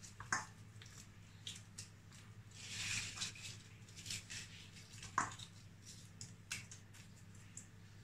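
Crisp fried papri crackers being crumbled by hand into a bowl of moist chickpea and potato chaat: scattered small crackles and snaps as they break, with pieces pattering onto the mix, the sharpest snap about five seconds in.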